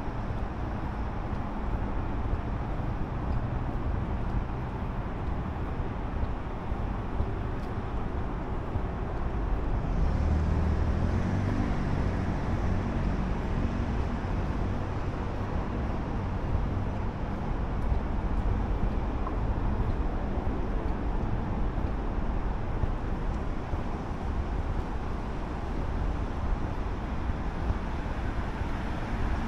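City street traffic: a steady rush of passing cars, with a louder vehicle going by about ten seconds in.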